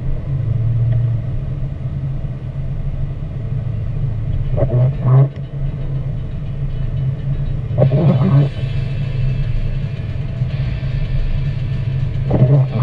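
Car driving on a wet road, heard from inside the cabin, with a steady engine and tyre rumble. The windshield wipers sweep on an intermittent setting, giving a short swish about every four seconds, three times.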